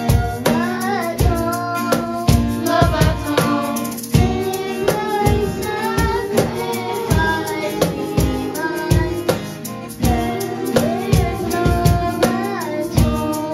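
A child singing a song into a handheld microphone over backing music with a steady drum beat.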